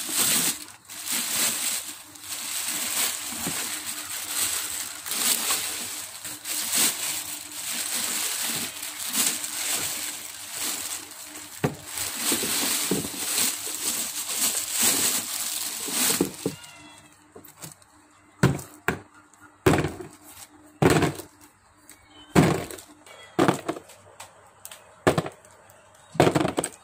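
Thin plastic bag crinkling and rustling steadily as it is handled for about sixteen seconds. Then a run of separate sharp knocks, about one or two a second, as solid white cubes are handled one at a time against a plastic tray.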